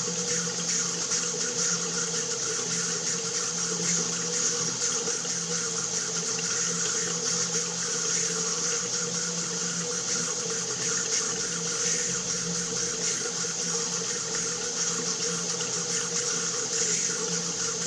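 Water running steadily from a tap, an even rushing that does not change.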